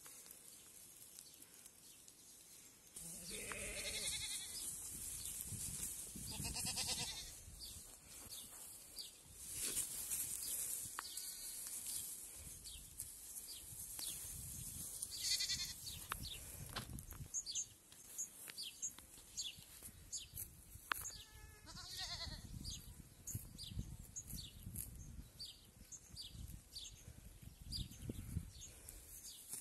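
Goats bleating, about four separate bleats spread through the stretch, over a low rumble. Short high chirps repeat through the second half.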